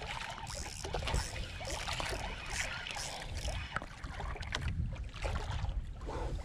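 Sea water lapping and sloshing against the hull of a small outrigger canoe, with an uneven low rumble of wind on the microphone.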